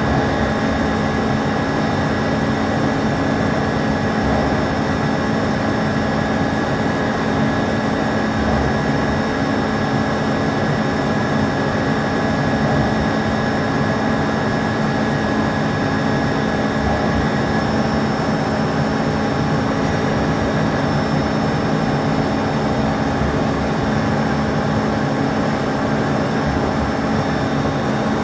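Heyligenstaedt Heynumat 5UK-800 CNC lathe running under power: a steady machine hum with several constant whining tones. One higher whine fades out about two thirds of the way through.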